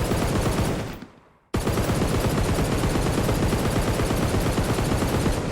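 Automatic gunfire sound effect: a burst of rapid shots lasting about a second, then after a short gap a long continuous burst of rapid fire for about four seconds.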